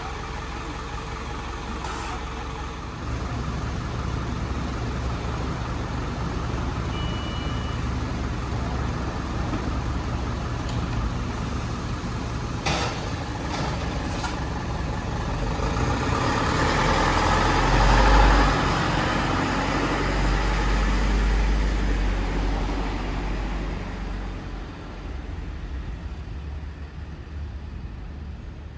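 Diesel route bus engine idling, with a few sharp clicks and a brief high beep, then growing louder as the bus pulls away, loudest about 18 seconds in, before fading as it drives off.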